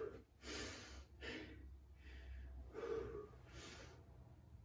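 A man breathing hard and deeply, in and out about once a second, winded and recovering after a round of high-intensity jumping exercise.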